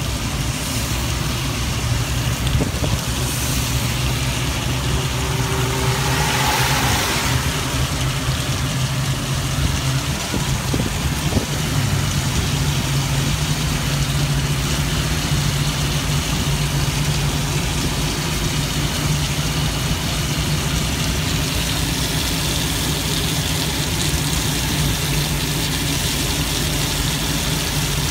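Organic Transit ELF velomobile riding on a wet road in rain, heard from inside its canopy: steady hiss of tyres on the wet surface and rain on the shell over a low drone. A louder hiss swells and fades about six seconds in.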